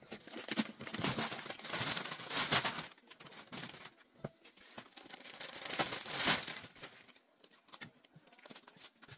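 Rustling and crinkling of upholstered chair cushions being handled and pressed into place on a wooden chair frame, louder in two spells, about one to three seconds in and again around six seconds in.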